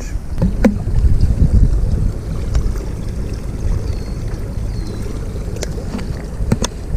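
Wind rumbling on the microphone, with a few light clicks and knocks scattered through it.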